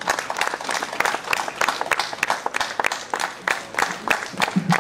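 Crowd applauding: many hands clapping.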